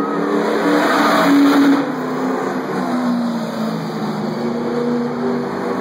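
Stock car engine passing on the track below, loudest about a second in and then fading into a steady drone as the car runs on around the oval.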